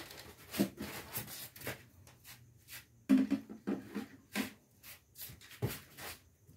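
Irregular metal knocks and scrapes as an engine cylinder block is worked by hand down over its studs onto the crankcase, the loudest knock a little past three seconds in.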